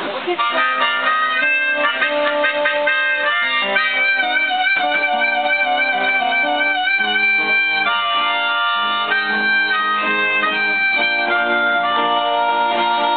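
Instrumental music without singing: a melody with a wavering vibrato, about four to seven seconds in, over a busy pitched accompaniment.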